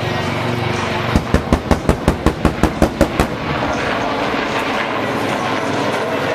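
Attack helicopter flying by, with a two-second run of about a dozen sharp, evenly spaced bangs, about five a second, standing out over the steady noise about a second in.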